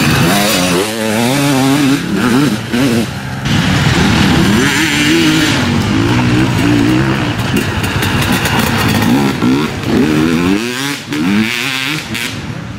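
Off-road dirt bike engines revving hard and easing off again and again, the pitch climbing and dropping with each burst of throttle.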